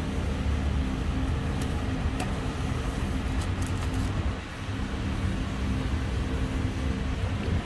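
Vehicle engine running steadily with a low rumble, dipping briefly about four and a half seconds in. A few light clicks of a plastic cup being handled come between about two and four seconds in.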